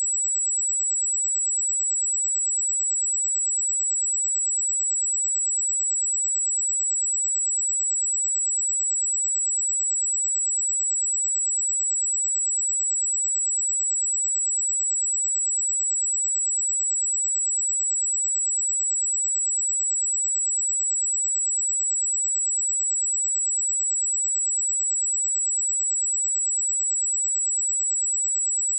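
A pure 7803 Hz sine-wave test tone: a single steady high-pitched whistle, unchanging in pitch and loudness.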